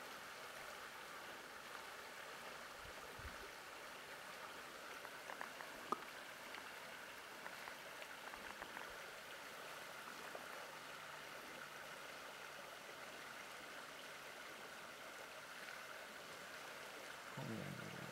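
Faint steady rushing of a small river's flowing water, with a single sharp click about six seconds in.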